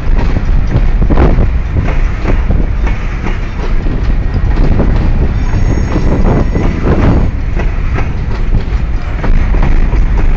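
Loaded freight train's covered hopper cars rolling past close by with a loud, steady rumble, their wheels clacking over the rail joints. A faint, high wheel squeal rises for a moment about five seconds in.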